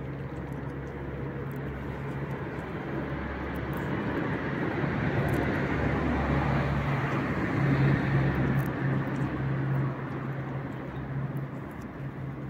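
A motor vehicle's engine hum and road noise, swelling over several seconds and dropping off sharply about ten seconds in. Faint clicks run through it from a cat chewing wet food.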